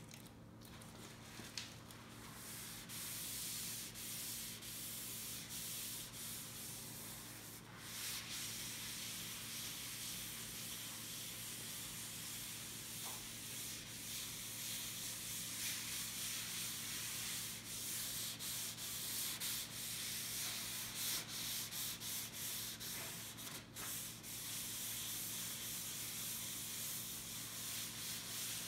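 A cloth rag rubbing and wiping Danish oil into a sanded cherry wood slab: a steady scrubbing hiss of fabric on wood, which grows louder about eight seconds in.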